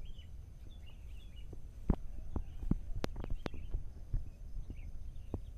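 Footsteps through grass: irregular soft knocks, several in quick succession from about two to three and a half seconds in, over a low steady rumble, with faint bird chirps in the background.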